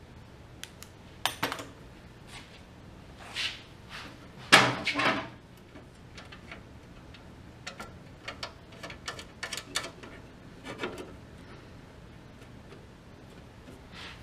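Steel sheet-metal battery cover being handled and set in place over a garden tractor's battery box: metal clanks and scrapes, the loudest a rattling clank about four and a half seconds in, then a run of light clicks and taps.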